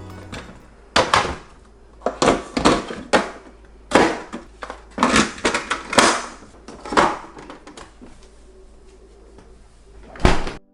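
Freezer items and containers being handled and put away, with a drawer or door moved: about ten irregular knocks and clatters over a faint low hum.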